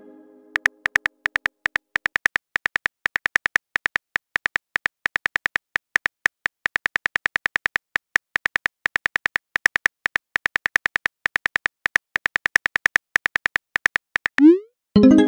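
Simulated phone keyboard clicks, tapped rapidly at several a second as a text message is typed. Near the end comes a quick rising whoosh followed by a short chime as the message is sent.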